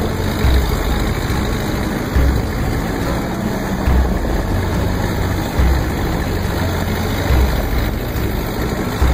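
Wooden fishing boat under way on a rough sea: a steady rush of water and engine noise, with a low thump roughly every two seconds.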